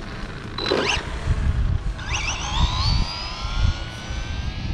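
Arrma Infraction 3S BLX RC car's brushless motor and drivetrain whining, rising sharply in pitch about two seconds in as it accelerates away on a full-throttle speed run, then holding a steady high pitch. Wind buffets the microphone throughout.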